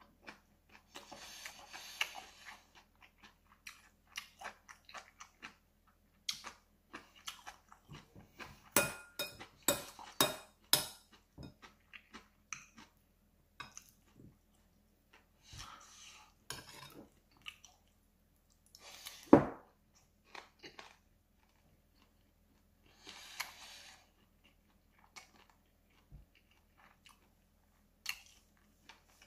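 Close-up eating sounds of a dongpo pork rice bowl: chewing with small clicks, and a metal spoon clinking and scraping against a ceramic bowl. One sharp, loud knock comes about two-thirds of the way through.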